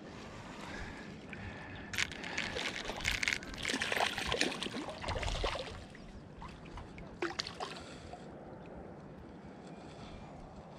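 A hooked trout splashing at the water's surface beside the boat for about four seconds, starting two seconds in, then a few lighter splashes.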